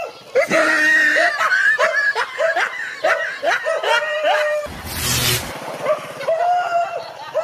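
A high-pitched voice-like cry repeated rapidly, about three times a second, for about four seconds, followed by a brief low rumble and longer held cries near the end.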